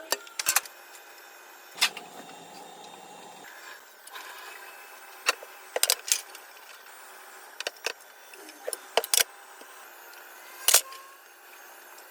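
Scattered sharp clinks and knocks of hard objects being handled and set down, about a dozen over a faint steady hiss.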